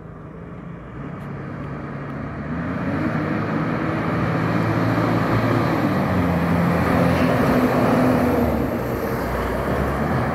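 Fire engine approaching and driving past, its engine and road noise growing steadily louder and loudest about eight seconds in.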